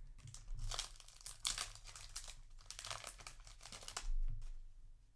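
Foil booster pack wrapper crinkling and rustling as it is handled, in a string of crackles over about three seconds.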